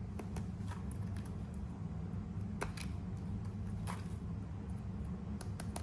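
Scattered light clicks and taps of small craft materials being handled on a desk, over a steady low hum.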